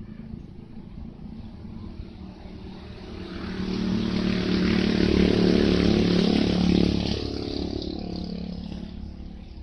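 A motor engine passing by: a steady engine hum that swells about three seconds in, is loudest in the middle, and fades away after about seven seconds.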